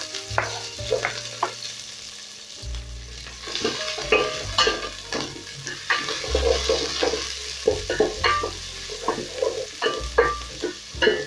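Chopped red onions sizzling as they fry in hot oil in a metal pot. A wooden spoon stirs them, with repeated scrapes and clicks against the pot.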